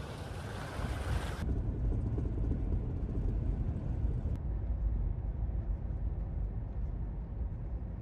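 Toyota 4x4 driving on a paved road: steady low rumble of engine and tyres heard from inside the cab. The sound shifts abruptly about a second and a half in, as the scene changes.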